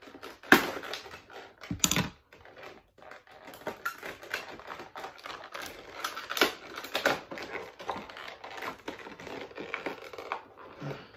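Toy packaging being cut and pulled apart with a knife to free an action figure: an irregular run of plastic clicks, snaps and crinkles, with two sharp snaps in the first two seconds.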